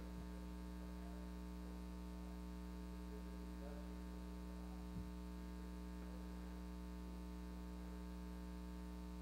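Steady electrical mains hum, with a faint distant voice under it and a single soft click about five seconds in.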